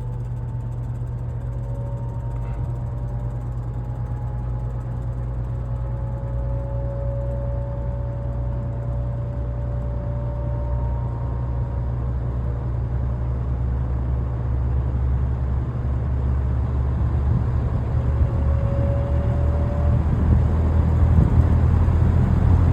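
Vintage Air King PL20E box fan with GE motor and metal blades starting up: a steady motor hum with faint whining tones that drift slowly upward, growing gradually louder as the blades come up to speed.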